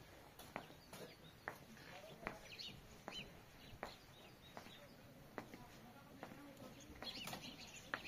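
Quiet outdoor ambience with faint bird chirps and light, sharp clicks or knocks at irregular intervals, about one a second.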